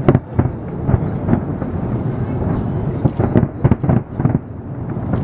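Aerial fireworks bursting in quick succession: a string of sharp bangs over a continuous low, thunder-like rumble.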